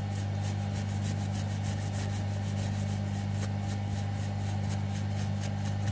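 Toothbrush bristles scrubbing a freshly soldered circuit board in quick, even strokes, several a second, cleaning it after the MOSFET replacement. A steady low hum runs underneath.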